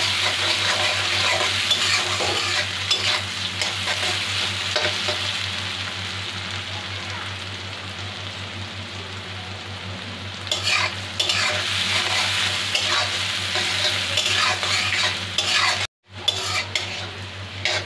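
Chopped onions sizzling in hot oil in a metal karahi, with a spatula scraping and stirring them against the pan. The stirring pauses for a few seconds in the middle while the frying hiss goes on, then resumes, and the sound drops out for an instant near the end.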